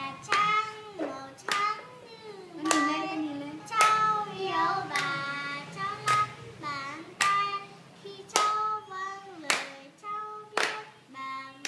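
Voices, children's among them, singing a birthday song together, with hands clapping along in time about once a second.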